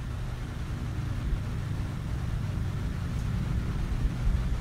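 Steady low background rumble with no speech.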